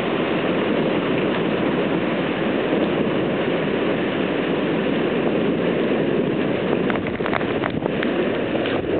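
Heavy thunderstorm downpour: a loud, steady rushing hiss of rain, with a few sharp clicks about seven to eight seconds in.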